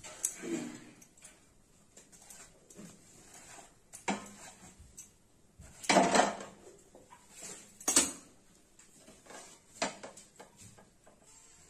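Metal clanks of a tawa (flat iron griddle) and tongs knocking on a gas stove's burner grate as phulkas are cooked: a few separate knocks a couple of seconds apart, the loudest about six seconds in.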